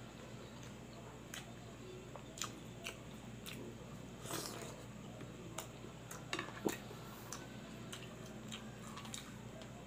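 A person chewing pig-intestine kilawin: soft wet chewing with scattered short smacks and clicks of the mouth, the sharpest a little past halfway.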